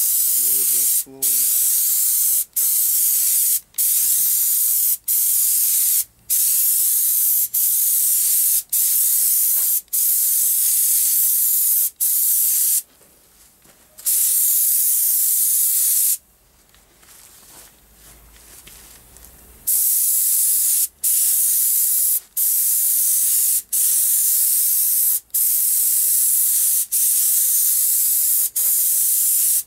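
Gravity-feed compressed-air spray gun spraying primer onto a truck cab's sheet metal: a high hiss in repeated passes of about a second each with brief breaks between triggers, pausing twice in the middle for a few seconds.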